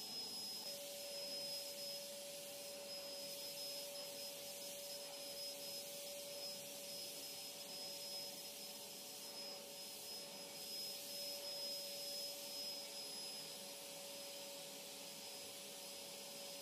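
Vacuum cleaner running steadily: an even hiss with a constant whine that comes in just under a second in.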